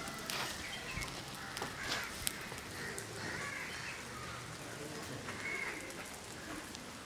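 Crows cawing a few times against a quiet outdoor background, with faint scattered clicks.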